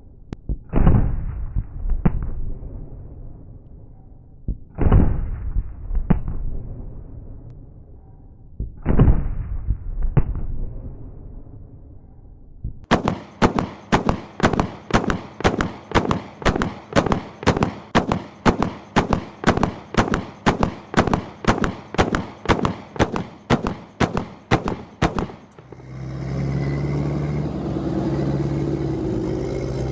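30 mm Mk44 Bushmaster II chain gun firing: three short bursts of about three heavy booming rounds each, then a long, even string of rounds at about two and a half shots a second for some twelve seconds. Near the end the firing stops and a steady low rumble follows.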